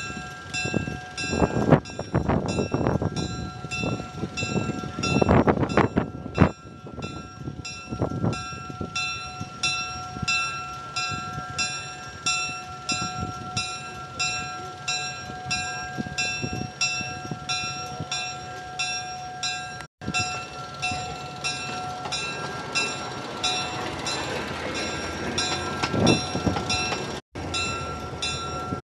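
Diesel locomotive's bell ringing steadily, about two strokes a second, over the engine running as the locomotive rolls slowly out of the roundhouse. Two loud rushes of sound come in the first several seconds.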